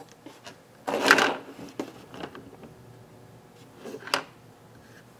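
Handling noise from working on an opened camcorder: a few light clicks, a louder clatter about a second in, and a sharp click about four seconds in.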